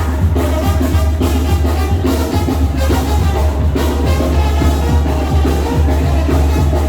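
Loud Latin dance music from a band, with heavy steady bass and percussion.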